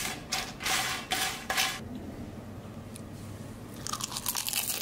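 Crispy potato wedges crunching as a knife cuts through their crust: several loud crunches in the first two seconds, then a quick crackly run near the end.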